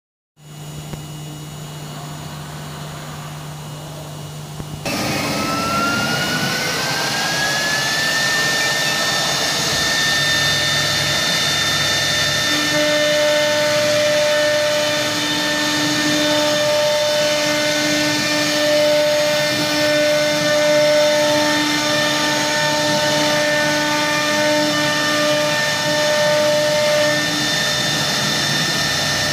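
Three-spindle CNC router running: a low steady hum, then about five seconds in the sound jumps louder and a spindle whines up in pitch over a few seconds to a steady high whine. From about twelve seconds in, further steady tones come and go over the machine's noise.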